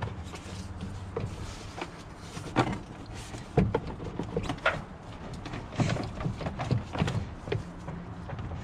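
Knocks, clicks and rubbing of plastic and rubber intake parts being handled and pushed into place at a Yamaha Rhino 660's carburetor, with several sharper knocks between about two and a half and seven seconds in, over a steady low hum.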